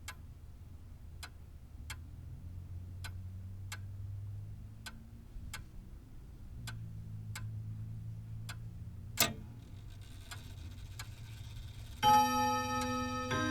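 Grandfather clock ticking steadily, about one and a half ticks a second. About nine seconds in there is a louder click and a soft whirr. About twelve seconds in the clock strikes a rich ringing note, and a second strike follows near the end.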